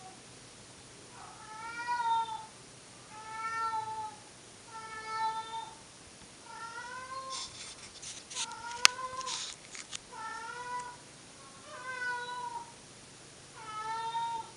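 Domestic cat yowling: about eight long, drawn-out calls, one every second and a half to two seconds. A sharp click and some rustling come in the middle.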